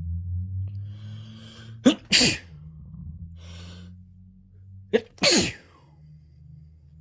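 A person sneezing twice, about three seconds apart. Each sneeze has a drawn-in breath before it, then a sharp catch and a forceful burst. These are allergy sneezes.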